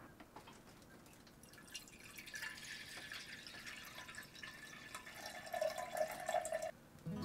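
Water poured in a thin stream into the glass body of an old Pyrex stovetop percolator, splashing into the water already inside. The pour starts about two seconds in, a ringing tone from the filling glass joins it for its last second and a half, and it stops suddenly near the end.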